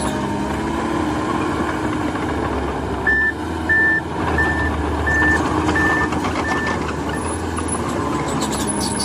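Heavy diesel machine running, with its reversing alarm beeping six times at an even pace partway through while the engine works harder.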